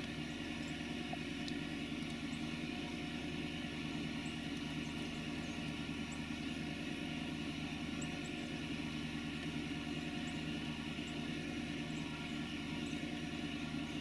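Steady, unchanging mechanical drone, like distant engine noise, with faint, brief high chirps scattered through it.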